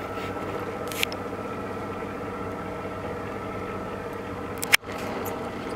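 Boat engine running with a steady hum. A light click about a second in, and a sharp pop near the end after which the sound cuts out for an instant.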